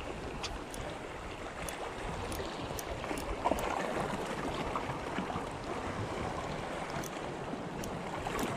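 Steady wind and water lapping, with a few scattered faint light ticks.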